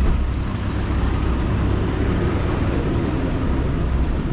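Steady road and engine rumble heard from inside a moving Tata car's cabin, deep and even throughout.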